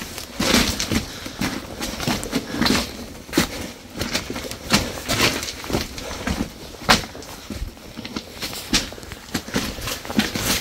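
Loose rock rubble crunching and clattering as someone scrambles over the infilled floor of a mine level, with irregular sharp cracks and knocks of shifting stones several times a second.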